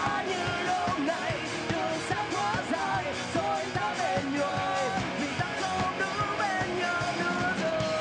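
Live rock band performing: a male lead vocal singing over electric guitar and a steady drum beat. A long held note comes in near the end.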